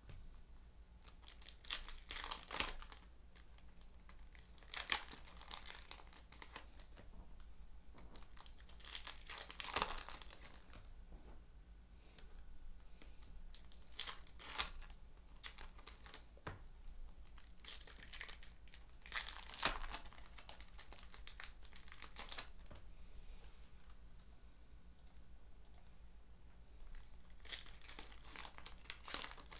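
Foil trading-card packs crinkling and tearing as they are ripped open by hand, in short bursts every few seconds.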